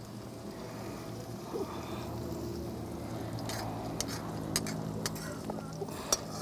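Onions frying in hot ghee in a karahi, with a steady sizzle and about five sharp clicks in the second half.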